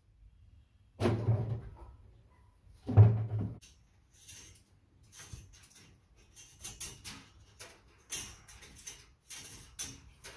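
Two dull thumps about two seconds apart, then a run of irregular scraping, rustling and clicking as taped electrical wires are pulled through a roof-rack crossbar tube on a fish tape.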